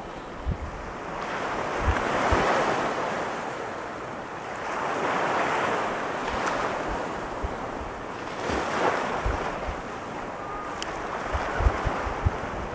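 Pacific surf breaking and washing up the beach, the rush of water swelling and fading three times. Wind buffets the microphone with short low thumps, a cluster of them near the end.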